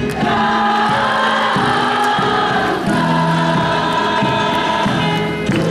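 Large choir singing together in long held notes, with brief breaks between phrases.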